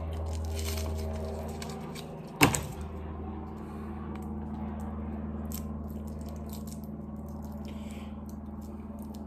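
Paper wrapper of a Sugus chewy sweet being picked open by hand: faint scattered crinkles and clicks, with one sharp crack about two and a half seconds in, over a steady low hum.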